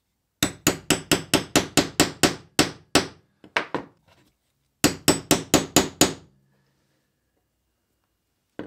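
A claw hammer tapping a metal punch through leather into a wooden workbench to make stitching guide holes: quick sharp blows, about five a second, each ringing briefly. A run of about a dozen comes first, two single blows follow after a short gap, then a second run of about seven.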